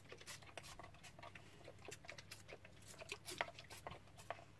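Faint, scattered small clicks and rustles of handling and movement, irregular and without any steady rhythm.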